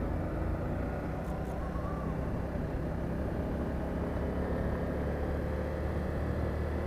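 Motorcycle engine running steadily while riding, a continuous low rumble mixed with road and wind noise.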